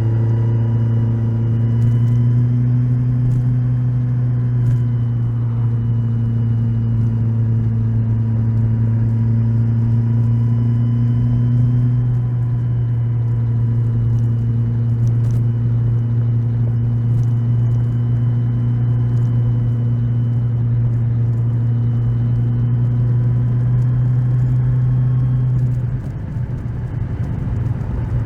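Kawasaki Z1000SX inline-four engine running at a steady, nearly constant pitch while riding, with road noise underneath; the engine is still being run in. About two seconds before the end the steady engine note drops away and the sound falls off.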